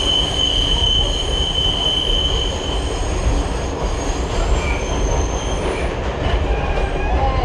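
R68 subway train running on the rails with a steady low rumble; a high-pitched wheel squeal holds for about the first three seconds, then a few shorter squeals follow.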